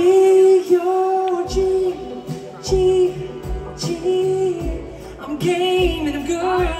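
Live pop band performing, with a lead vocal singing long held notes over drums, bass and guitar.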